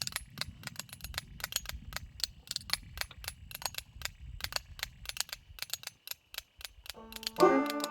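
Metal spoons clacking a quick rhythm on their own. About seven seconds in, a banjo and fiddle come in playing the tune.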